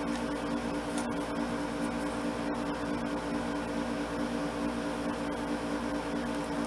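Steady mechanical hum with a few fixed tones, like a fan or appliance running, with a couple of faint clicks of wire strippers working on a wire's insulation.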